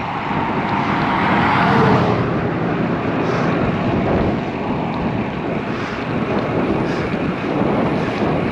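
Steady wind noise on the microphone of a cyclist riding on a road. About a second in, a motor vehicle passes, its sound swelling and dropping in pitch.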